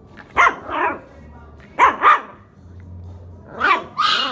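Shiba Inu puppy giving short, squeaky barks, about six of them in three pairs.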